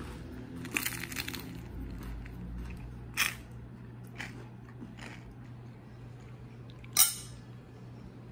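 Close-up biting and chewing of crusty baguette: a cluster of crackly crunches about a second in, then scattered single crunches, with one sharper, louder click about seven seconds in.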